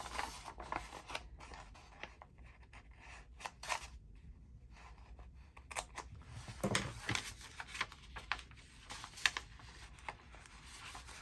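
Paper being cut with scissors and handled: a series of short, irregular snips and rustles.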